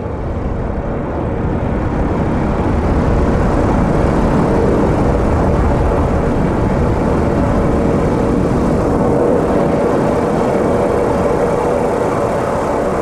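Ambient drone soundscape: a steady, dense low rumble with a held mid-pitched tone running through it, swelling over the first few seconds and then staying even.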